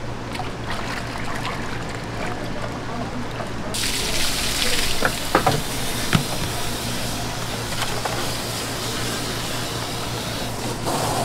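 Running water from a tap starts about four seconds in and keeps running while sliced fish is rinsed in a plastic mesh basket, with a few sharp knocks of the basket. A steady low hum runs underneath.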